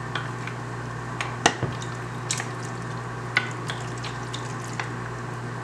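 A metal fork clinking against a glass bowl and dish while lifting wet souse (pork and cucumber in lime brine), with scattered clinks and soft wet stirring. The sharpest clink comes about a second and a half in, over a steady low hum.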